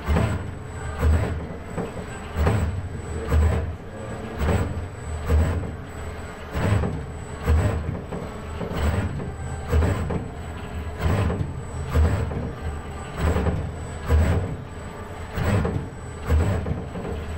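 ABB industrial robot arm's servo motors and gear drives running as the arm paints, with a deep pulse about once a second over a steady high-pitched whine.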